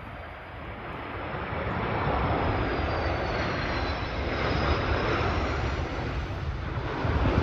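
Regional jet on its landing approach passing by: the rush of its turbofan engines swells over the first couple of seconds and stays loud, with a faint high whine shifting in pitch above it.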